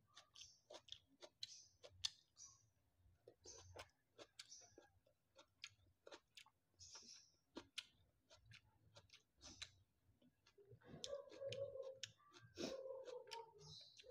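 Close-up eating sounds: soft chewing with many small mouth clicks and lip smacks. About eleven and twelve and a half seconds in come two short low voiced sounds.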